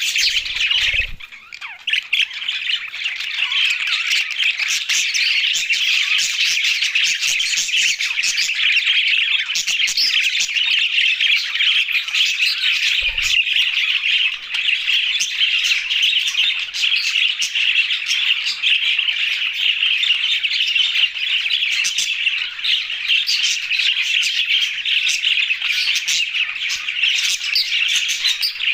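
A flock of budgerigars, English and blue budgies, chirping continuously, many birds calling at once. The chirping dips briefly about a second in, and there is a short low bump about thirteen seconds in.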